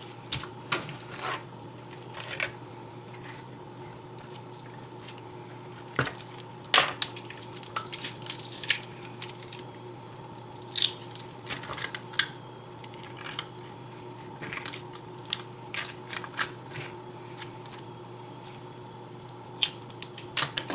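Small Byrd Finch knife cutting up raw chicken: scattered wet slicing and squishing sounds with sharp, irregular taps of the blade on the board.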